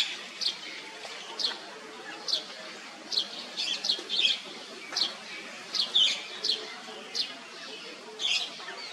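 Small birds chirping: short, high calls repeating irregularly about once a second over a faint steady outdoor background.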